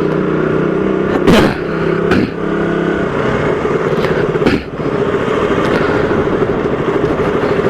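Motorcycle engine running steadily on the move, with rushing air and road noise, picked up by an SJCAM action camera's built-in microphone. Two brief sharp knocks, about a second and a half in and again about four and a half seconds in.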